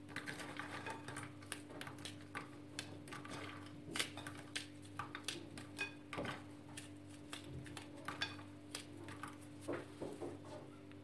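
Ladyfinger biscuits being broken by hand into small pieces onto a ceramic plate: faint, irregular small cracks and clicks over a steady low hum.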